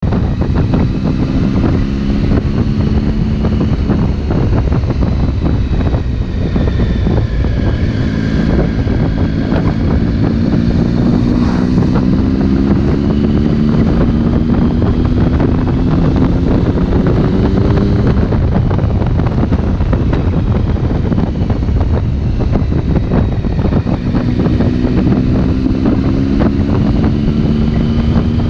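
Motorcycle engine running under way, heard from on board, with heavy wind buffeting on the microphone. The engine note climbs slowly in pitch as the bike pulls, fades under the wind about two-thirds through, then rises again near the end.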